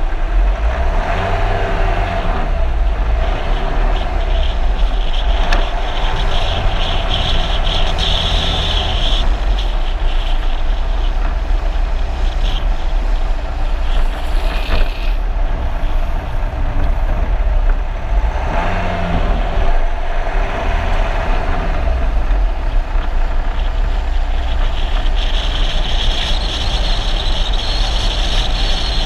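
Steady wind and road rumble from a follow car driving down a mountain road close behind downhill skateboards, with a brighter hiss rising for a few seconds twice.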